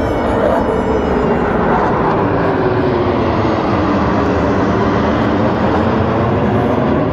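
A formation of fighter jets passing overhead: a loud, steady jet-engine roar whose pitch slowly falls as the aircraft go by.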